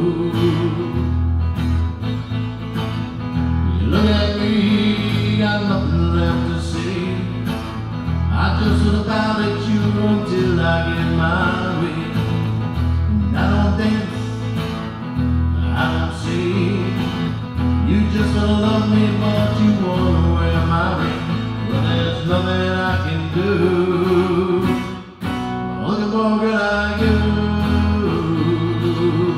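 Live acoustic duo: acoustic guitar strumming over an acoustic bass line in a steady country-pop groove, with a male voice singing.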